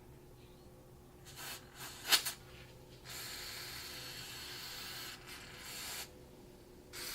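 Aerosol can of battery terminal cleaner spraying onto the battery terminals: a steady hiss of about three seconds, then a second spray beginning near the end. A few short handling noises come before it, one of them a sharp click.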